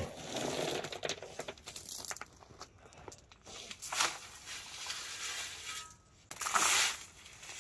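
Shovel scooping and dumping crushed-stone ballast beside the track ties: gravel crunching and small stones rattling in several separate scoops, the loudest near the end.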